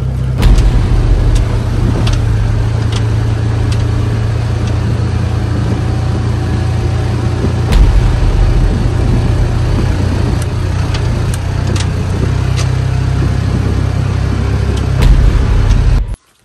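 Vehicle engine running steadily while driving, with scattered knocks and rattles and a few heavier jolts, about half a second in, near the middle and near the end. The sound cuts off suddenly just before the end.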